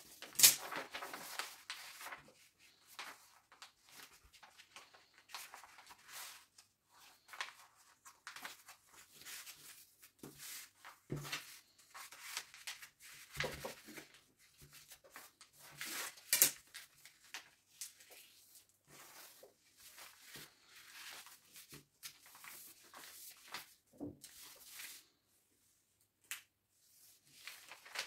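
Stiff paper rustling and crinkling as a large sheet is folded and creased by hand, with hands sliding over the paper and scattered sharp crackles, the loudest about half a second in and again around the middle.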